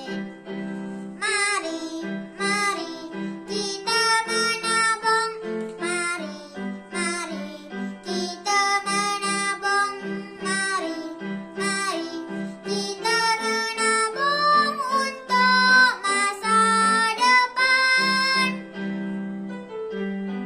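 A young boy singing a Malay children's song, over an instrumental backing track. The singing stops near the end and the backing music carries on.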